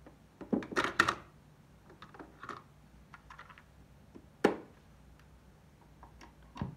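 Mechanical clicks and clunks from a Technics RS-263AUSD cassette deck: a cluster of clunks from the eject key and the cassette door opening about a second in, small rattles as the cassette is lifted out, one sharp snap of the door shutting about four and a half seconds in, and clicks of the power switch near the end.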